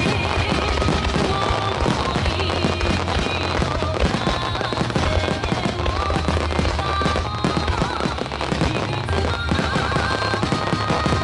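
Fireworks shells bursting and crackling in rapid succession over loud music from the show's speakers.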